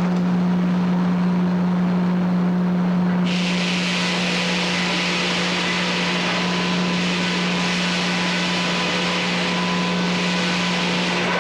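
Frick 00 circular sawmill running with a steady low hum. About three seconds in, a loud high hiss starts suddenly and keeps going.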